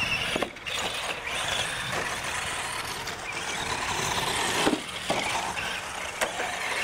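Radio-controlled trucks racing on a dirt track: the motors whine, rising and falling with the throttle, over the gritty noise of the tyres on dirt, with a few sharp knocks as the trucks hit and land off the ramps.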